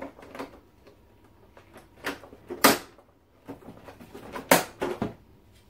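Plastic snap latches on the back panel of an Electrolux PA26G water purifier popping free as the panel is pried off. A handful of sharp clicks and clacks come in two clusters, about two seconds in and again near the end.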